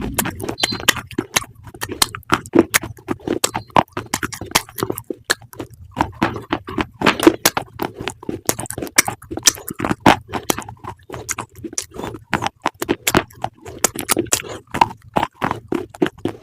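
Close-up chewing of crunchy food: a dense, irregular run of sharp crunches and crackles.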